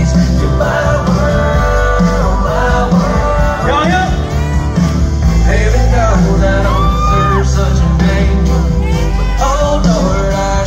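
Loud live music: a man singing gliding vocal runs over a backing track with a steady bass.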